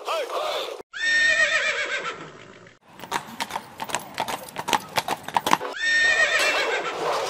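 Horse sound effects: a horse whinnies with a quavering, falling cry, then hooves gallop in quick clip-clop beats for about three seconds, and near the end a second whinny.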